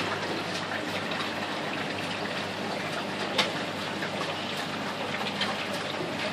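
Water trickling and splashing steadily in glass aquarium display tanks as it circulates through them, with a single sharp tick near the middle.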